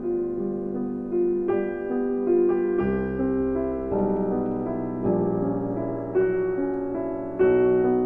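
Background keyboard music: a slow piano-like melody over held chords, with new notes struck every second or so.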